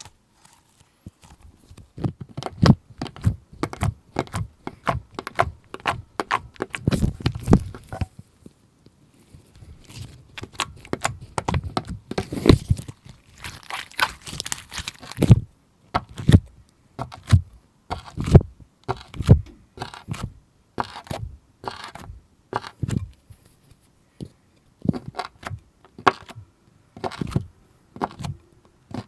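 Slime being pressed, stretched and kneaded by hand: a quick run of wet clicks, pops and squishes, with a few short pauses.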